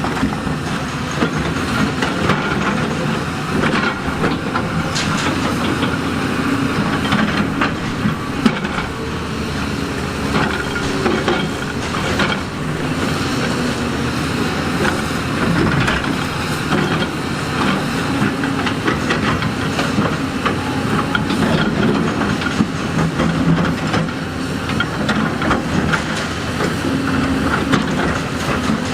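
Heavy excavator's diesel engine running steadily, with frequent scrapes and knocks of rock being shifted.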